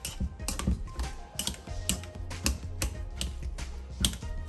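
Wire potato masher clicking and scraping against a stainless steel mixing bowl while mashing potatoes, a few irregular metallic clicks each second. Faint background music plays underneath.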